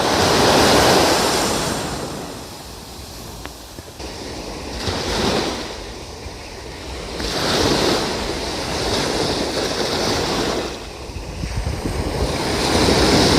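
Waves breaking and washing up a sandy beach, swelling and falling away about four times, with wind rumbling on the microphone.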